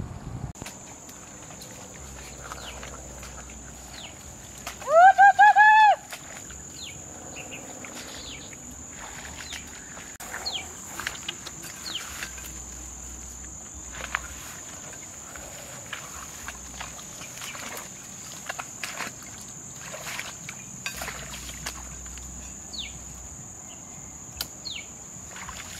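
Leaves and stems rustling and snapping as brush is pushed through and cut with a knife, over a steady high-pitched whine. About five seconds in, a loud rising cry, held for about a second.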